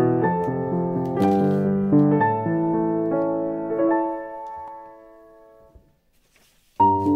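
Background piano music playing a gentle sequence of notes. It fades out a little past halfway, leaves a moment of near silence, and the piano starts again abruptly near the end.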